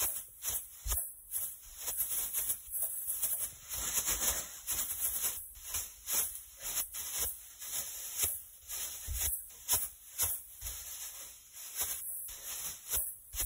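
Cheerleading pom-poms with plastic strands rustling and swishing as they are shaken hard, in quick, irregular bursts. A few dull thumps mixed in.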